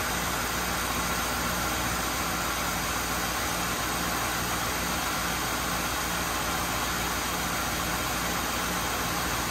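1996 Mercury Cougar XR7's engine idling steadily with the hood open.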